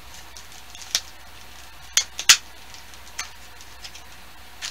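A few short clicks and crinkles of a plastic soft-bait pack being handled, the loudest a little after two seconds in.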